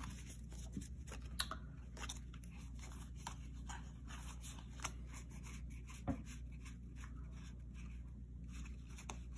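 Tarot cards being flipped through by hand: soft slides and light, irregular ticks of cards against each other.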